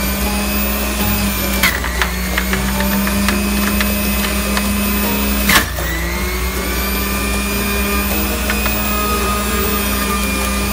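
Breville centrifugal juicer's motor running with a steady whine while it grinds beets. Twice there is a sharp knock, and each time the motor's pitch dips and then climbs back up as it takes the load of the beet.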